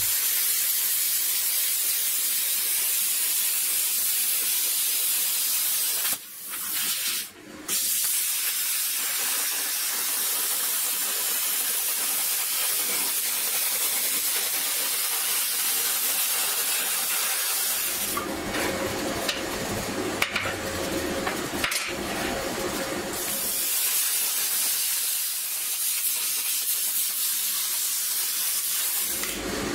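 Plasma cutter cutting sheet steel: a steady hiss of the arc and air jet. It cuts out briefly about six seconds in, then returns, and sounds rougher for a stretch in the middle.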